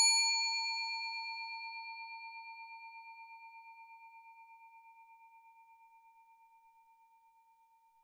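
Chrome desk service bell ringing out after a single tap: one clear tone with bright higher overtones that fade first. The tone wavers slightly as it slowly dies away over several seconds.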